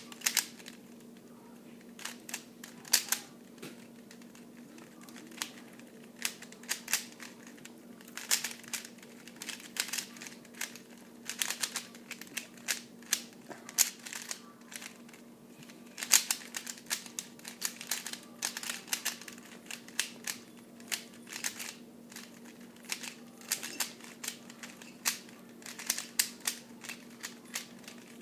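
Dayan Zhanchi 3x3 speedcube being turned fast during a solve: irregular runs of sharp plastic clicks as the layers snap round, with short pauses between bursts. A faint steady hum lies underneath.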